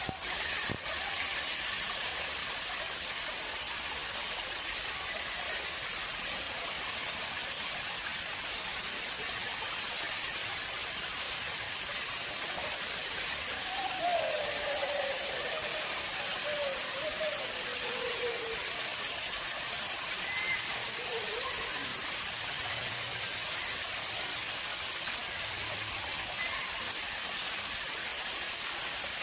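Water flowing steadily in an artificial pond, a constant even rush. A faint wavering call rises and falls briefly about halfway through, and there is a single click right at the start.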